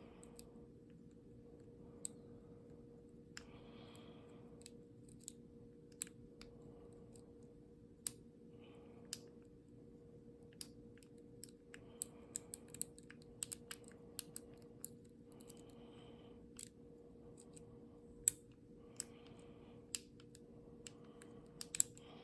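Faint, irregular clicks and soft scrapes of a lock pick and tension wrench working the pin stack of an old American Black Beauty pin-tumbler padlock fitted with serrated and spool pins. A steady low hum runs underneath.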